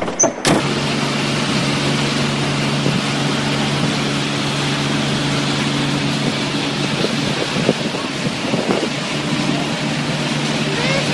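Steady drone of a boat's engine towing the duck boat, over rushing, churning water.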